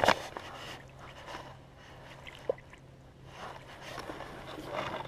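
Handling noise from a handheld camera swinging at the side while walking: a sharp knock at the start, then rubbing and rustling against clothing, with a few small clicks and soft steps on grass.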